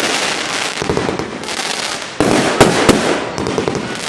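Fireworks and firecrackers going off all around in a dense, continuous crackle. Sharp bangs stand out: a loud one just after two seconds in, then two more in quick succession.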